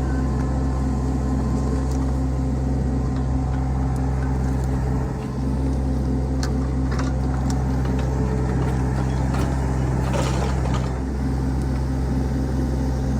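Engine of a digging machine running steadily while the hole is scraped out, with a few short scrapes and knocks about halfway through and again near the end.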